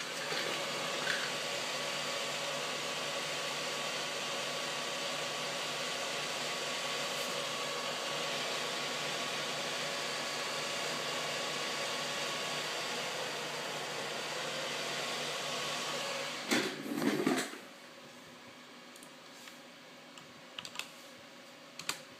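The triple fans of a Sapphire R9 280X Tri-X graphics card run fast with a steady loud whir and whine, the abnormal fan noise the owner complains of. Near the end there is about a second of clattering knocks. The fan noise then drops to a much quieter hum.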